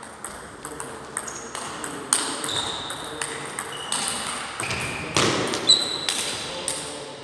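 Plastic 40+ table tennis balls clicking in a fast rally as they are struck by rackets and bounce on the tables, in irregular sharp knocks. Short high squeaks run among them.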